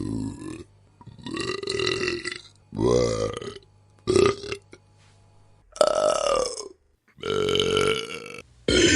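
A string of separate burps, about seven, each of a different length and pitch, with short pauses between them.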